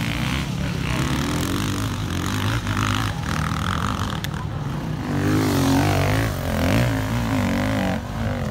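Enduro dirt bike engines revving under load on an off-road course. Their pitch rises and falls with the throttle, most strongly in the second half.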